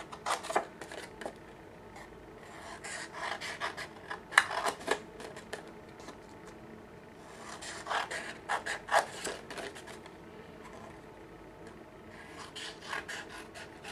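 Scissors cutting into a square of paper along its diagonal creases toward the center, in four separate bouts of short snips a few seconds apart.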